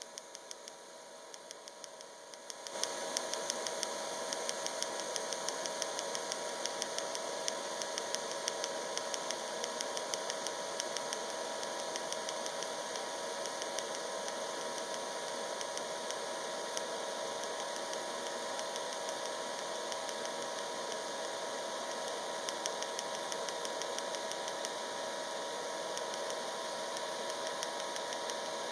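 TIG welding arc on stainless steel, a steady hiss with fine ticking through it that starts about three seconds in. The Jasic TIG 200P AC/DC PFC is in pulsed DC at 3 Hz, switching between 80 A and 30 A.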